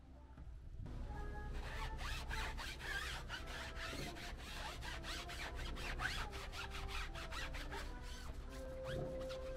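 Quick, repeated scrubbing strokes on the car during a hand wash, starting about a second in, over soft background music with held notes.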